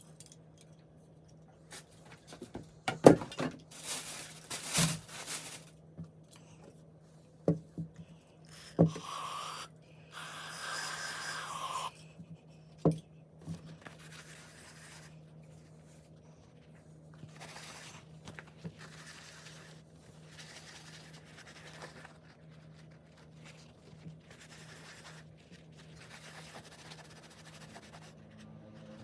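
Hand work with small parts and tools: scattered clicks, knocks and scrapes, with a hiss of about two seconds about ten seconds in, over a steady low hum.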